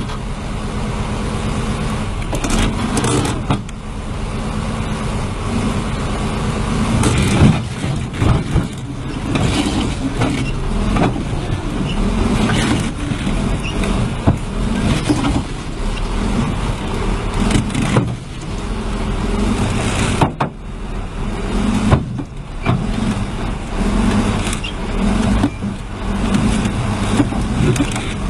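Heavy machinery engine running, with repeated knocks and clanks throughout and a louder bang about seven seconds in.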